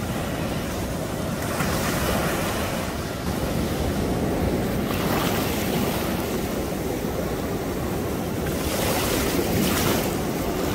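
Surf breaking and washing through shallow water, swelling louder about 2, 5 and 9 seconds in, with wind rumbling on the microphone.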